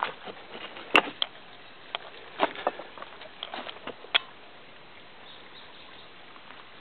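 Irregular footsteps crunching through leaf litter and loose stones on a rocky trail, with a sharp click about a second in. The steps thin out over the last couple of seconds.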